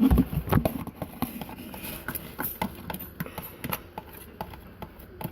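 A utensil stirring glitter glue and baking soda in a container, tapping and scraping against it in irregular clicks, loudest in the first half-second.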